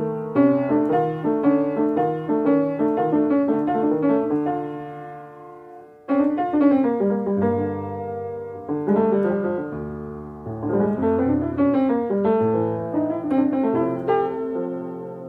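Piano music: notes struck over a moving bass line, one phrase dying away about six seconds in before the next begins.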